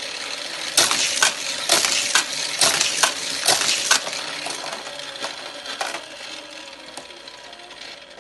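Die-cast toy car running around a Hot Wheels plastic loop track: a rapid run of sharp plastic and metal clacks and rattles from about a second in to four seconds, then a few scattered clicks, over a steady whir that fades toward the end.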